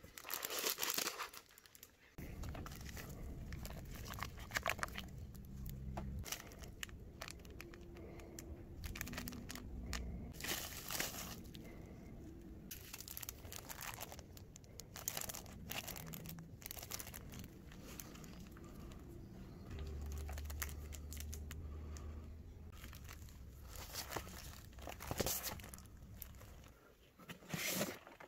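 Packaging being handled and opened: plastic wrap and packing material crinkling and tearing, with irregular rustles and light knocks throughout.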